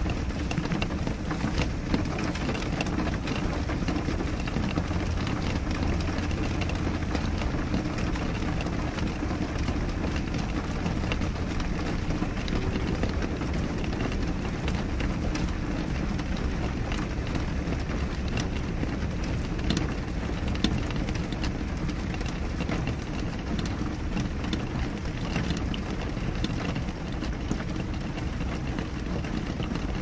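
Steady rain falling on a window pane: an even, dense rush with a deep rumble underneath and many scattered sharp ticks of drops hitting the glass.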